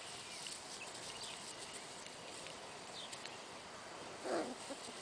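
Quiet outdoor background hiss with faint rustling and light ticks of an Irish Doodle puppy playing in the grass. A short, soft vocal sound comes a little over four seconds in.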